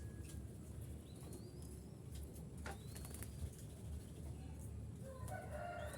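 Zebra dove (perkutut) cooing about five seconds in, a short run of stuttering coo notes. Earlier there are a few thin, rising, high whistled chirps, and a steady low rumble lies under everything.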